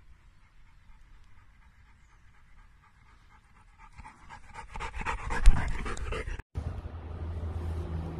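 A dog panting, faint at first and growing louder as it runs up close, loudest about five and a half seconds in. After a sudden cut, a steady low hum like a car's cabin runs under it.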